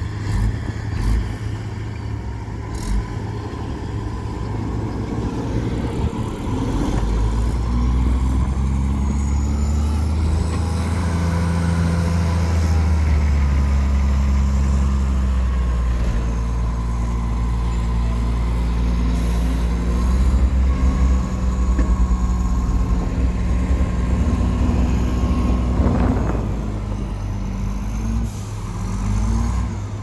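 Hyundai dump truck's diesel engine revving up about six seconds in and held at steady high revs to drive the hydraulic hoist as the tipper body rises to unload soil, easing back near the end. A brief clunk a few seconds before the end.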